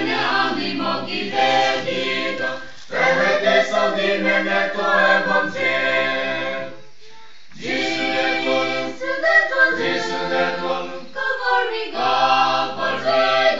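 A group of voices singing together in phrases a few seconds long, with brief pauses between the phrases.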